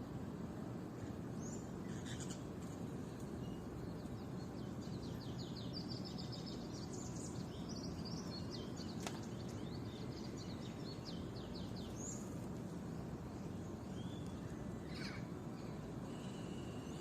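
Small songbirds chirping and trilling, with a run of quick repeated trill notes near the middle, over a steady low outdoor background hum.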